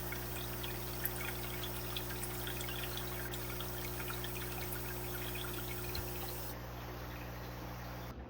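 Water trickling and pouring with many small drips and splashes over a steady low hum.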